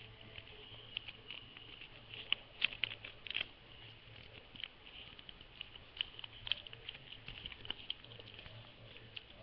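Sheet of paper being folded and creased by hand: a run of small crackles and rustles, thickest about two to three and a half seconds in and again around six to seven seconds, over a faint low hum.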